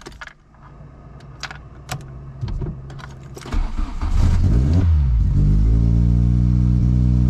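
Volkswagen Golf 2 GTI's four-cylinder engine being started: clicks and cranking, then it catches about four seconds in with a brief flare of revs and settles into a steady idle. It starts normally with the Omex rev limiter wired into the ignition coil.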